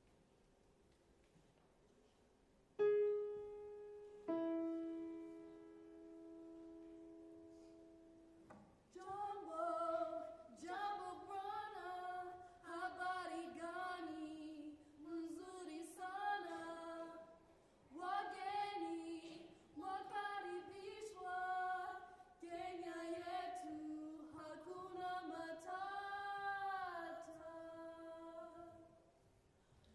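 A piano sounds two starting pitches, one about three seconds in and a lower one a second and a half later, each ringing and dying away. After a few seconds of quiet, a high school SSA women's chorus begins singing in short rhythmic phrases with brief breaks between them.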